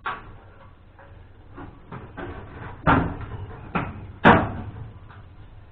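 Drawers of a steel tool cabinet being slid and shut, with a series of metallic clunks, the loudest about four seconds in.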